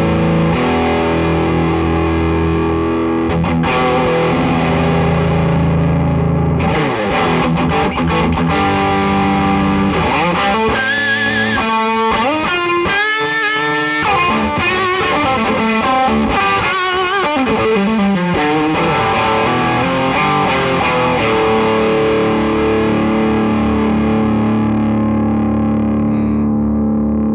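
Electric guitar played through a Jet City JCA2112RC tube combo amp with the input gain turned all the way up, giving heavy high-gain distortion with some reverb. Distorted chords and riffs give way in the middle to a lead passage of bent, wavering notes, and a chord is left ringing near the end.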